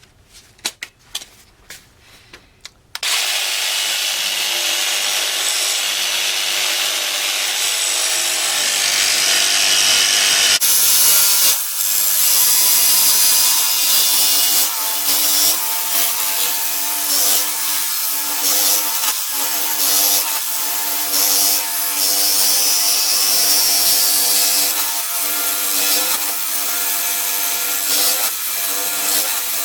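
A few light clicks, then a power tool starts about three seconds in and runs steadily to the end, working material for a homemade light bracket.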